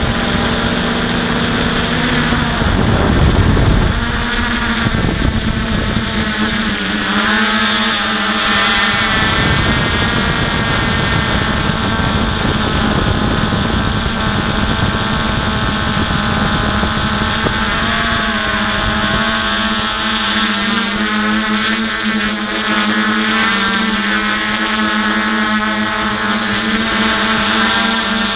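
Aphid X450 quadcopter's electric motors and propellers buzzing close to the onboard microphone, pitch bending with throttle changes about a quarter of the way in, then holding fairly steady. A low rumble sits under it in the first few seconds.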